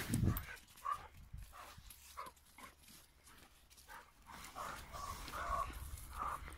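Dogs at play, giving a series of short, whining yelps that come more often in the second half. A low rumble of wind or handling noise sits under the start.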